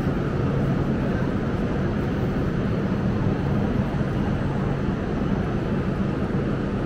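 Steady low mechanical drone with a hum, from the equipment of a standing electric high-speed train at the platform.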